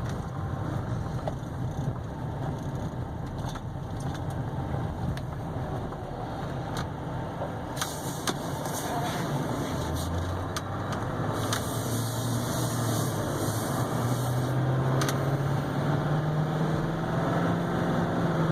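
Duramax 6.6-litre turbo-diesel V8 of a 2015 Chevy Silverado 3500HD running with road noise while driving. From about ten seconds in, the engine note climbs steadily and gets louder as the truck accelerates.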